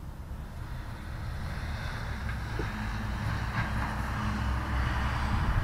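Wind rumbling on the microphone, with the steady hiss of a passing vehicle swelling gradually louder.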